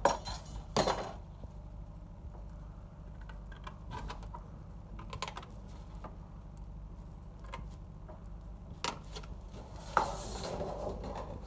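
Tin snips cutting galvanized sheet steel: a run of small sharp metallic clicks as the blades bite and close. About ten seconds in, a louder clank followed by a brief rattle as the sheet metal is shifted.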